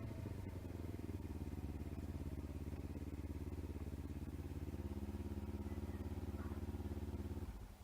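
Kawasaki Ninja 300 parallel-twin engine running at a steady low speed, an even throbbing idle. The engine sound cuts off abruptly near the end.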